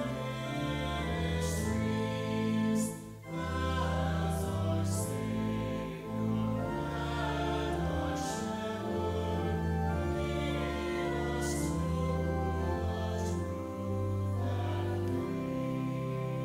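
A small group of voices singing a hymn to organ accompaniment, held notes moving steadily over sustained low organ tones.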